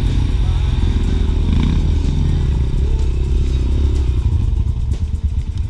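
Dirt bike engine running at low revs as the bike picks its way over a rocky, muddy trail, with clatter from the ride. Near the end the engine sound turns uneven, in short pulses.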